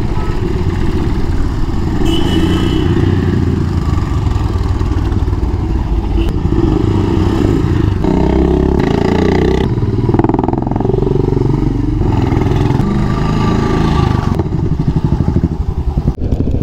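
Royal Enfield Classic 350 single-cylinder engine running while the bike is ridden along, its note rising and falling about halfway through as the throttle and gears change.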